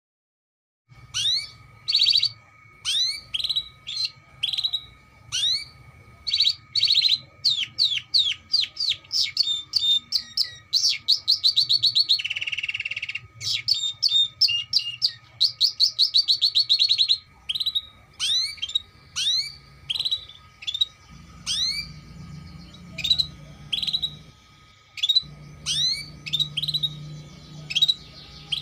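Domestic canary singing: a long, varied song of rapidly repeated rising chirps and fast trills, with a short buzzy rattle near the middle. It starts about a second in.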